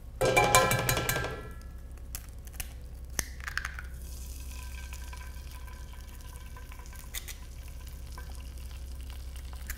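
An egg cracked into a hot buttered Stargazer cast iron skillet, frying with a faint, steady sizzle. A brief ringing clatter comes in the first second.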